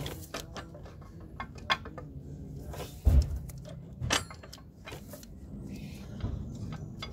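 Scattered metallic clicks and clinks of a 2.0 TFSI engine's timing chain and camshaft sprockets being handled and shifted by hand while the cam timing is lined up. A dull thump sounds about three seconds in.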